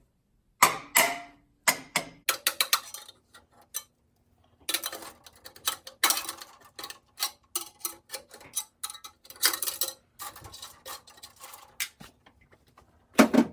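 Irregular sharp metallic clicks and taps, thickest in the middle, as a tool works a knockout loose from an electrical floor box.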